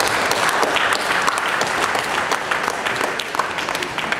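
Audience applauding, many hand claps blending into a dense patter that thins slightly toward the end.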